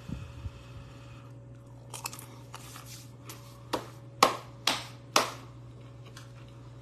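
Crunchy tortilla chip being chewed close to the microphone: a string of sharp crunches, the loudest about four and five seconds in, over a steady low hum.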